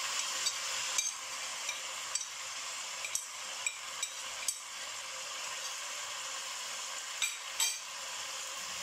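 Chicken pieces frying in hot oil in a pot, a steady sizzle, while a metal spoon scrapes and clinks against a plate, knocking spices off it, in scattered ticks with two close clinks near the end.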